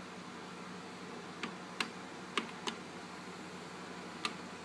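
Six short, sharp clicks, roughly in pairs, as the disc-select buttons on an RCA RS2664 compact stereo's five-disc changer panel are pressed, over a steady low hiss.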